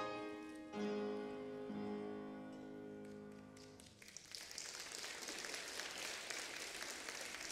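Instrumental music closing on a final held chord that dies away about four seconds in, followed by a congregation applauding.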